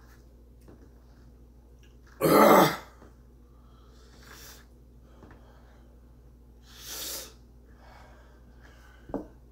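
A man breathing hard through burning chili heat in his mouth: one loud, forceful cough-like blast of breath about two seconds in, softer heavy exhales around four and seven seconds, and a short sharp grunt near the end.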